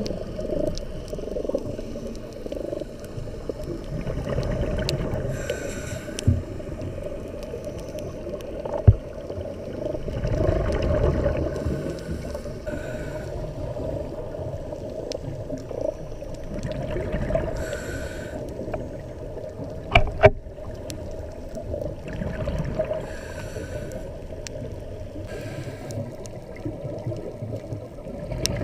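Muffled underwater sound inside a camera's waterproof housing on a scuba dive: a steady low rumble of moving water and exhaled bubbles, with a brief hiss of a diver's regulator every five or six seconds. A few sharp knocks, two of them close together about twenty seconds in.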